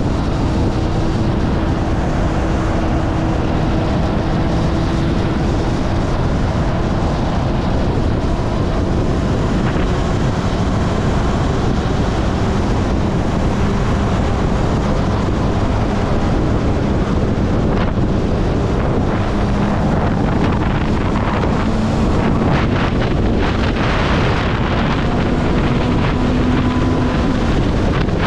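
Heavy wind rush on the camera microphone of a moving motorcycle, with the Honda CB400SF's inline-four engine note faint beneath it. The engine's pitch holds fairly steady, then climbs slowly in the second half.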